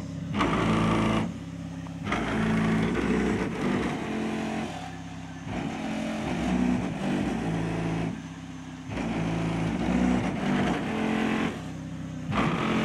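Bass-heavy music playing loud through a car stereo's two 15-inch Volfenhag subwoofers driven by a 1000-watt Kenwood amp, heard from outside the car. The beat drops out briefly about every three to four seconds: about a second in, near five seconds, near eight seconds and near twelve seconds.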